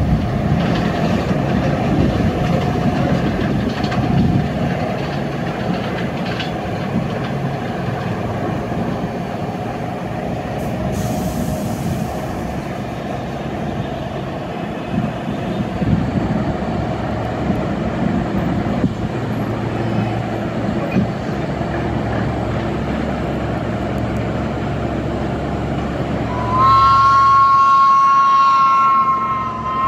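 Steady rumble of subway trains on an elevated track. Near the end, a loud two-tone horn sounds for about three seconds from the approaching vintage BMT Standard subway train, breaks off briefly, and sounds again.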